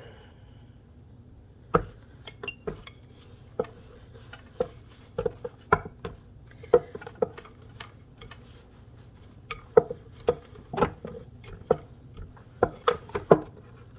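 Irregular light knocks and taps of a wooden rolling pin and hands on a wooden cutting board as a wheat-gluten dough is pressed and rolled flat, one or two knocks a second, starting about two seconds in.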